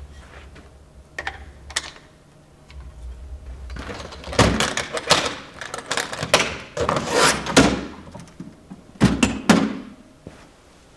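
Knocks, rattles and clunks of a hard-shell aluminium equipment case being handled, closed and moved off a table, busiest through the middle, with two sharp knocks near the end.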